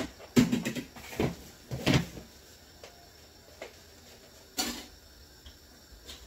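Kitchen clatter: a handful of short knocks and clunks as things are handled on the counter, the loudest about half a second in, with others around one, two and four and a half seconds in.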